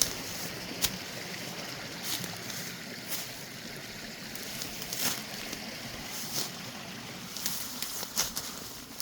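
Steady rush of a mountain creek, with scattered snaps and crunches of footsteps through brush and debris, about one every second or two.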